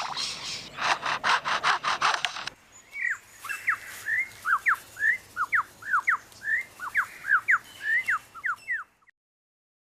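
Superb lyrebird mimicking a chainsaw, a rasping, pulsing buzz, then switching about two and a half seconds in to a run of quick whistled notes that slide sharply up and down. The song stops about nine seconds in.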